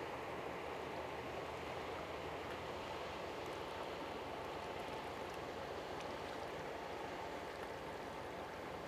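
Small cabin motorboat cruising past: a steady rush of water from its bow wave and wake over a low, even engine drone.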